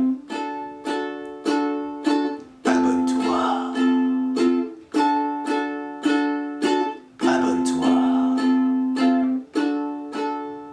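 A ukulele strummed in a steady rhythm, about two strums a second, each chord ringing and fading before the next, with the chord changing every couple of seconds.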